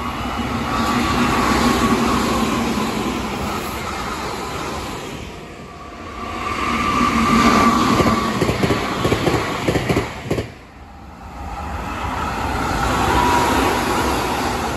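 Meitetsu electric trains passing at speed: motor whine and rumbling wheel noise swelling and fading in three waves. In the middle wave there is a rapid clatter of wheels over rail joints that cuts off abruptly.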